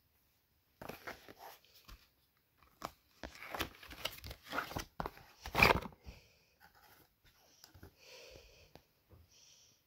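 Cardboard box being opened by hand: irregular rustling and scraping of the paperboard flap, loudest a little past halfway, followed by fainter rustling as the fabric knee brace is drawn out.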